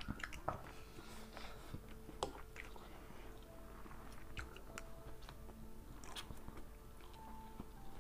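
Two people eating instant noodles with forks: faint chewing and slurping of noodles, with scattered light clicks of forks against plates.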